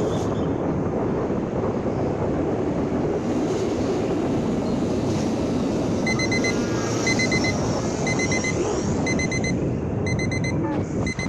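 A steady rush of noise, with an electronic beeper starting about six seconds in: short high beeps in pairs, about once a second.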